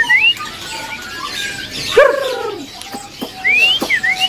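Many caged songbirds calling over each other: repeated rising whistles, short level notes, and one loud swooping call that arches down about two seconds in.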